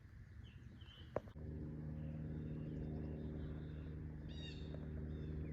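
Small birds chirping. About a second in, after a click, a steady low engine hum starts and runs on under another short burst of chirps.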